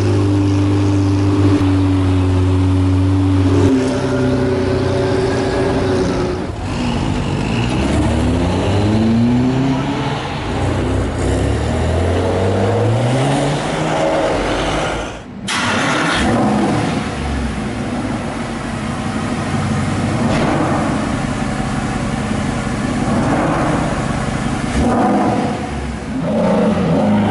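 Supercar engines in a run of street clips. First a Lamborghini Murciélago's V12 idles steadily, then an engine's revs climb several times in rising sweeps as it pulls away. After a cut about fifteen seconds in, more sports-car engine revving mixes with city traffic noise.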